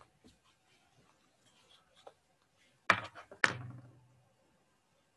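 Two sharp knocks on a hard surface, about half a second apart, the second followed by a short low ring that fades within a second. Faint small clicks and rustles come before them.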